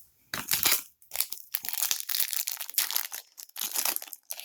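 Foil wrapper of a trading-card pack crinkling in a run of irregular crackles as it is handled and torn open.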